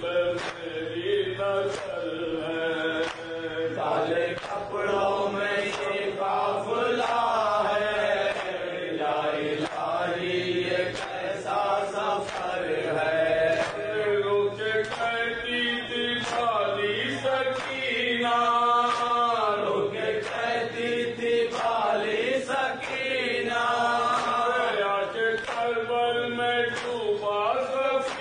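Male voices chanting an Urdu nauha (Shia lament) in a rising and falling melody through a microphone and PA, with a steady beat of hand slaps from chest-beating (matam) keeping time.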